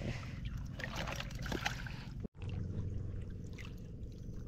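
Shallow seawater trickling and sloshing around a wader, with a few light knocks. About halfway through the sound breaks off for an instant and a steady low hum comes in under faint water noise.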